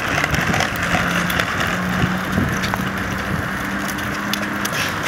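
Pedal go-karts' small hard wheels rolling over concrete: a steady rolling noise with scattered light clicks and rattles.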